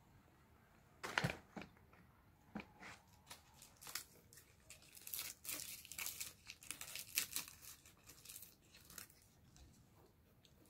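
Packaging being handled, crinkling and rustling in quick irregular crackles that start about a second in and are busiest midway.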